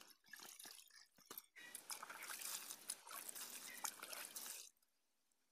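Water splashing and sloshing as diced sweet gourd pieces are washed by hand in a metal basin, and a cup is dipped into a bucket of water. Scattered splashes at first, then about three seconds of continuous sloshing that stops abruptly.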